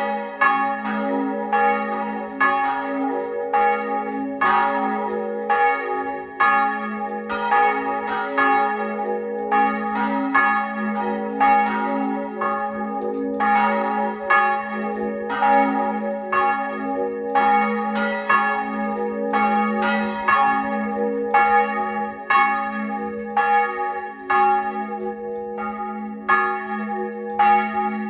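Hattula church bells pealing together, their strokes overlapping about twice a second over a lingering low hum.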